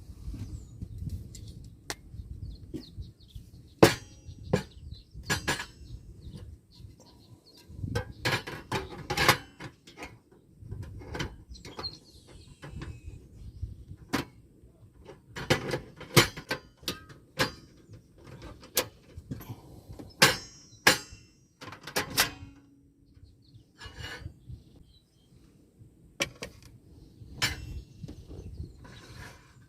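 Irregular knocks and clinks of gear being handled, like utensils and cookware, over a low rumble.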